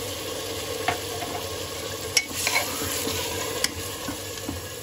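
A steel ladle stirring mutton, onions and whole spices in an aluminium pressure cooker. The wet mix sizzles steadily, and the ladle clinks against the pot a few times.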